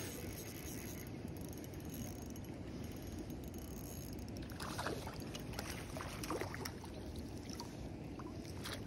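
Water splashing a few times, about five and six seconds in, over a steady low outdoor rumble.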